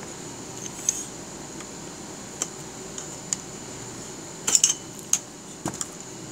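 Small screwdriver prying at the plastic locking tabs of a Panasonic VF200 inverter's housing: scattered sharp plastic clicks and taps, with the loudest cluster about halfway through.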